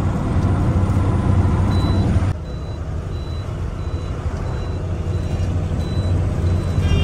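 Tata truck's diesel engine running steadily in the cab while a dashboard warning beeper sounds short, high beeps, evenly repeated about one every two-thirds of a second. This is the low-fuel warning: the tank is nearly empty.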